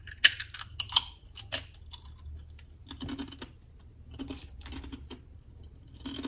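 Biting into a crispy hard-shell corn taco: sharp crunching and cracking of the shell, loudest about a quarter second and one second in, then softer crunches as it is chewed.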